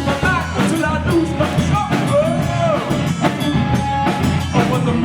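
Rock band playing, with drum kit, bass and guitar, and a high melodic line sliding up and down in pitch over the first half or so.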